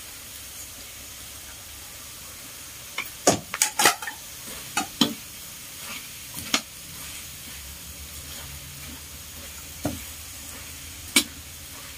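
Minced clams and sliced onion sizzling in a large metal wok, with a steady hiss, while a metal spatula stir-fries them, knocking and scraping against the pan now and then.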